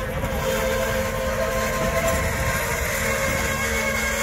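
Freight train moving along the track: a steady rumble with several thin, steady high tones over it.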